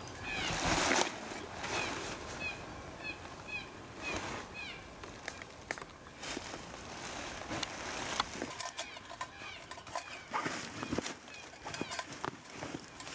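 A small songbird repeating short, falling chirps during the first few seconds, over rustling and light knocks of camping gear being handled.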